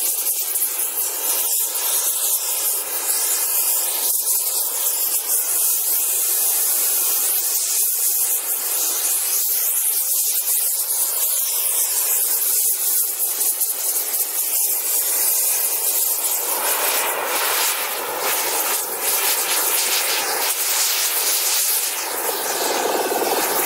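Gas torch hissing steadily as its flame plays on a hardcover book. About two-thirds of the way through, the sound spreads lower and grows rougher, with crackles, as the book cover burns in large flames.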